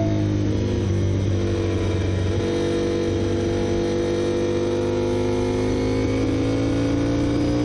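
Honda RC213V MotoGP bike's V4 engine picked up by its onboard camera, running at low, steady revs with the pitch slowly rising in the second half.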